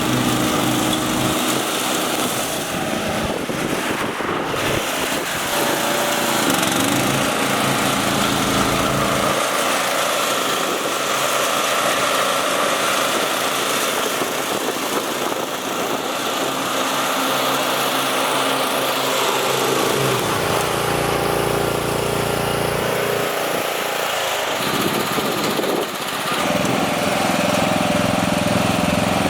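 Riding lawn mower's Briggs & Stratton engine running, its note shifting several times as the mower is driven.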